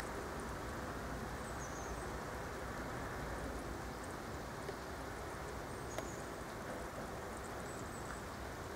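Steady outdoor background noise with a few faint, short high bird chirps: about two seconds in, six seconds in and again near the end.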